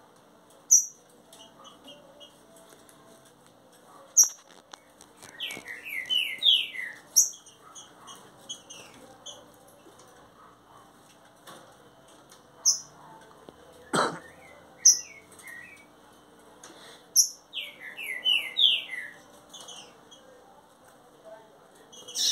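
Green-winged saltator (trinca-ferro) singing: two phrases of quick, falling whistled notes, a few seconds apart. Short sharp high chirps come every few seconds, and there is one sharp knock about 14 seconds in.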